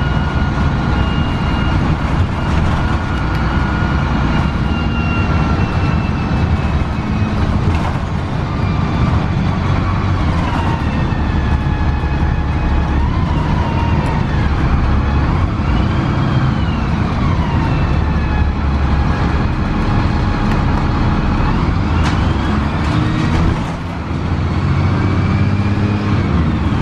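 Inside a 2002 Gillig Advantage transit bus under way: the Cummins ISC diesel engine and Voith transmission run with a steady low rumble. Over it sits a whine that rises and falls in pitch as the bus speeds up and slows. The sound is briefly quieter near the end.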